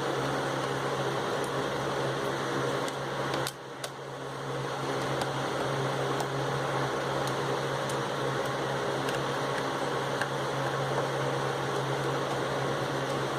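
Steady fan-like mechanical hum with a low tone, with a few faint light clicks scattered through it and a brief drop in level about three and a half seconds in.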